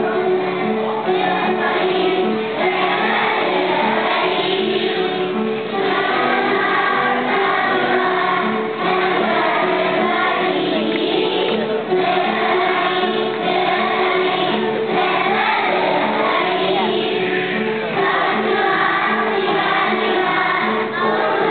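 Children's choir singing a song with instrumental accompaniment, the accompaniment's notes changing in a steady rhythm.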